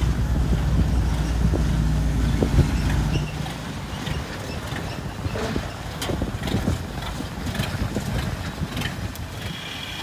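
Engine of a small tracked crawler carrier running, louder for the first three seconds and then lower, with wind buffeting the microphone.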